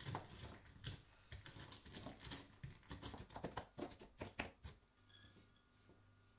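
Mixed nuts being crushed and chopped with a mezzaluna rocking blade on a wooden board: irregular crunches and knocks, thinning out about five seconds in.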